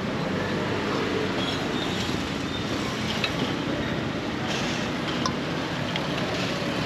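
Steady roadside traffic noise and street bustle, with a few faint light clicks about three and five seconds in.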